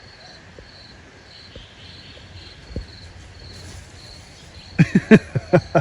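A steady, high, evenly pulsing insect chorus, like crickets. Near the end a person's voice lets out about five short, loud cries in quick succession, each falling in pitch.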